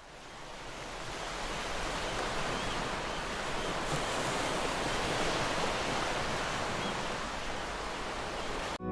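Steady rushing of water, an even hiss-like noise that fades in over the first couple of seconds and cuts off suddenly near the end.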